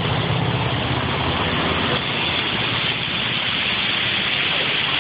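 Street traffic: a motorcycle engine running with a low, steady hum that fades after about two seconds, over a steady rushing noise.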